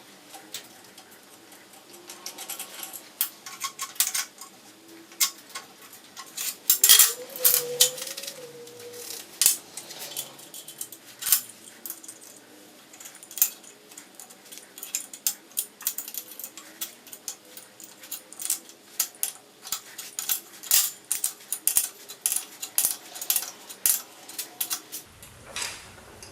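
Steel hand tools clicking and clinking irregularly against steel plate while a 1/2-13 thread is tapped by hand, with a brief squeal about seven seconds in.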